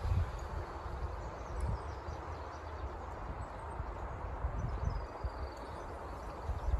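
Outdoor ambience: gusts of wind buffeting the microphone in low rumbles, over a steady hiss, with a few faint bird chirps in the middle.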